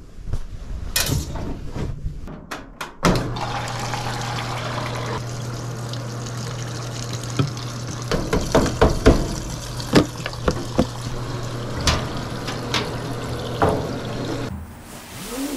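Washing machine filling with water: a steady rush of water with a constant low hum starts about three seconds in and cuts off suddenly near the end. Knocks and clatter come before and during the fill.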